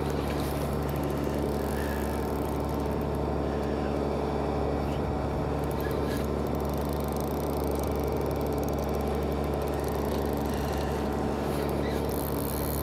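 A fishing boat's engine running steadily, an even low hum with a constant pitch.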